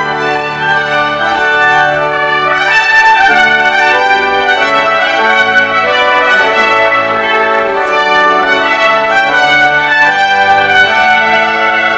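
Stately instrumental music led by brass, trumpets among them, playing held chords that change about every second.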